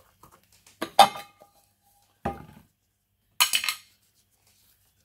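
Sheet-metal air filter cover being taken off and set down: separate metal clinks, the loudest about a second in with a short ring, another just after two seconds, and a brief rattling clatter about three and a half seconds in.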